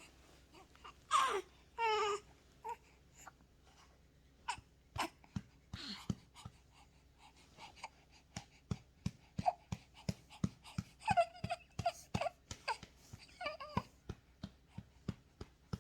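Four-week-old baby fussing with short whimpering cries, a little after the start and again in the second half. From about four seconds in, a steady run of short soft taps or clicks comes about twice a second.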